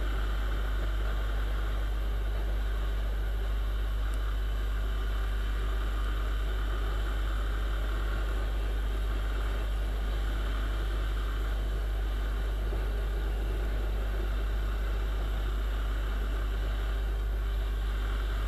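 Viper 200 motorcycle running at a steady speed, heard from the moving bike itself: a constant engine drone over a low rumble that does not rise or fall.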